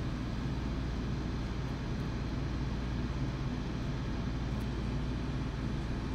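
Steady background hum and hiss of room noise, with a few faint ticks.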